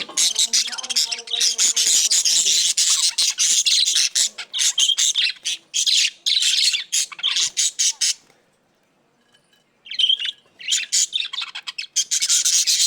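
Budgerigars chattering, a dense run of rapid, high chirps and warbles. It breaks off into near silence about eight seconds in and resumes a couple of seconds later.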